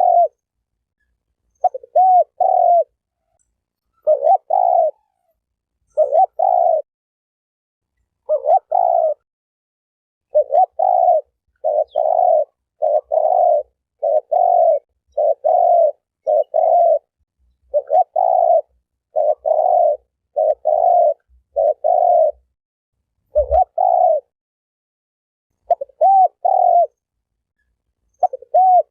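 Spotted dove cooing over and over, short groups of low, mellow coo notes coming about every one to two seconds, with a short pause near the end.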